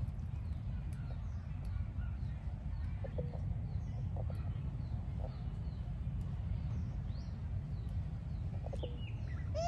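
Steady low rumble with faint, scattered short animal calls and chirps; a clearer rising-and-falling squeal begins right at the end.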